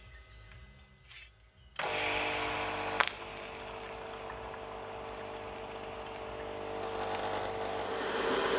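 Electric welding arc striking about two seconds in, then burning with a steady hiss and hum. There is one sharp click a second after it starts, and the arc grows louder near the end.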